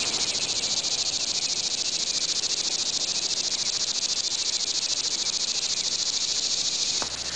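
Crickets chirping in a steady, high, rapidly pulsing night-time chorus.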